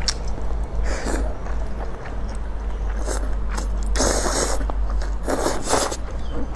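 A person eating noodles close to the microphone: a few short scraping, slurping bursts, the longest about four and five seconds in, with small clicks between them.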